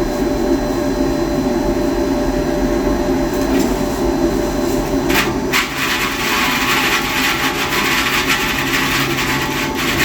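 NPSh-01 stuffing vacuum (fibre-stuffing blower machine) running steadily. About five seconds in there is a brief burst, and the sound then turns to a brighter, hissier rush of air.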